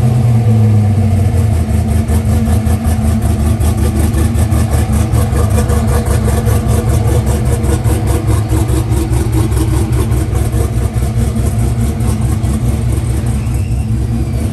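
Hennessy Venom F5's twin-turbo V8 settling from its start-up flare into a loud, steady, choppy idle with a rapid even pulse.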